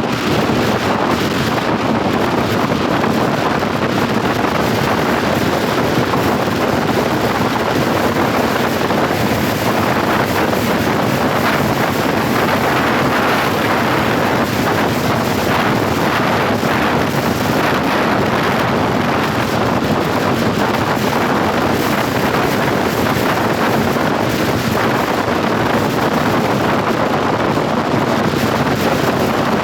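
Steady wind rushing over the microphone, mixed with the running noise of a moving vehicle.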